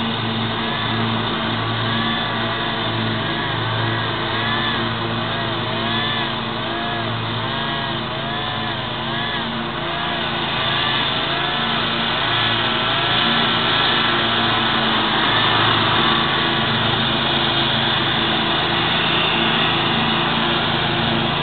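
Riding lawn mower engine running steadily while mowing. Over it, a higher-pitched sound rises and falls about twice a second for the first half, then gives way to a thin steady whine.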